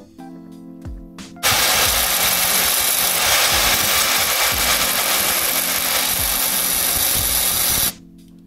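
A small power tool grinding, a loud even hissing noise that starts about a second and a half in and cuts off abruptly near the end. Background music plays before, under and after it.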